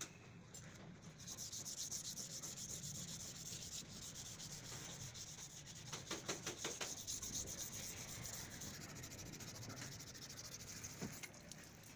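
Hand sanding with sandpaper along the edge of a fiberglass door, rapid back-and-forth rubbing strokes over hardened gelcoat-and-calcium-powder putty. It starts about a second in and tails off near the end.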